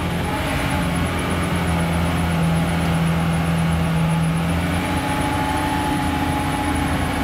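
Homemade tracked all-terrain vehicle driving, its engine running at steady revs with a low hum; the engine note steps up about five seconds in.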